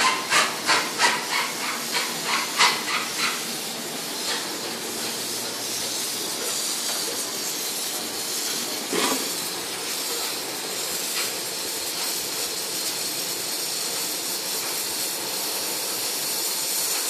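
Gas torch flame hissing steadily as it melts silver in a crucible. For the first three seconds or so the hiss pulses, about three beats a second, and there is a single knock about nine seconds in.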